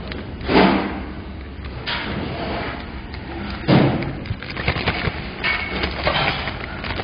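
Plastic zipper bag crinkling and rustling as it is sealed and squeezed by hand to coat cooked noodles in sesame oil, with two louder bursts of handling, about half a second in and at about four seconds.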